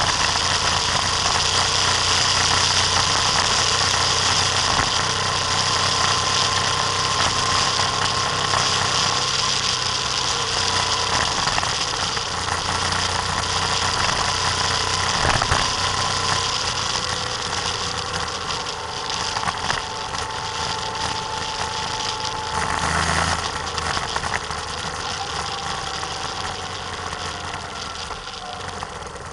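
Vehicle on the move: engine running steadily with wind and road noise on an outside-mounted camera, and a whine that drifts slowly in pitch.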